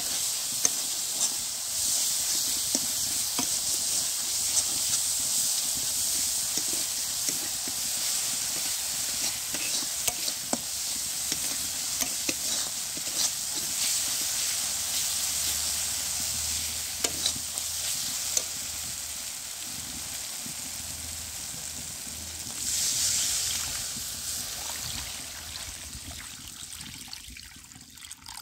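Onions, tomatoes and masala sizzling as they fry in a kadai, with a steel spatula scraping and clicking against the pan as it stirs. Near the end the sizzle swells briefly, then dies away as water goes into the pan.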